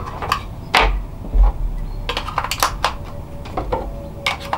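Irregular sharp clicks and knocks from hands opening a battery-powered video doorbell's casing and swapping its batteries.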